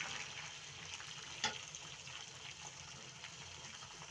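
Julienned carrots tipped from a basin into the hot oil of a cast-iron kazan of fried meat and onions, sizzling and crackling steadily. A single sharp knock about a second and a half in.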